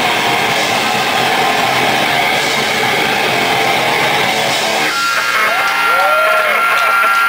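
Live powerviolence band playing fast, heavily distorted guitar, bass and drums. The song stops abruptly about five seconds in, leaving a steady high amp-feedback whine and a few short pitch glides.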